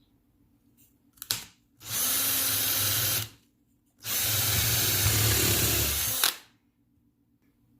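Power drill boring pilot holes into a wooden reinforcing board, run twice: about a second and a half, then after a short pause about two seconds. A sharp click comes just before the first run.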